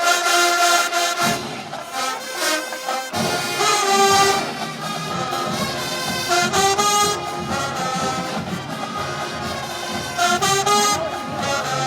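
HBCU show-style marching band playing a brass-led tune with drums. The low brass and drums drop out for the first three seconds, then come back in under the upper horns.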